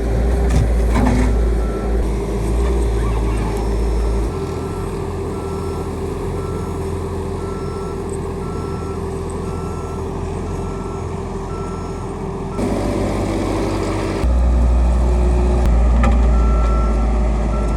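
Diesel engine of a piece of heavy equipment running, with its reversing alarm beeping steadily at about two beeps a second through most of the stretch. The engine gets louder near the end as it works harder.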